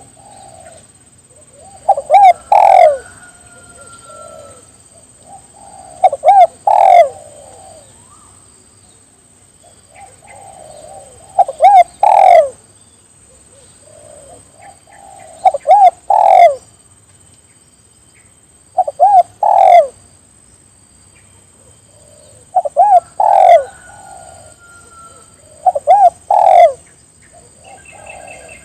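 Spotted dove (tekukur) cooing its song: each phrase is a few soft coos followed by two or three loud ones, repeated seven times about every three to four seconds. A faint steady high whine runs underneath.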